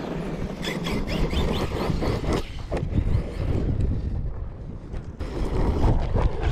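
Wind buffeting the microphone over a radio-controlled truck driving on rough ground, with a few sharp clicks.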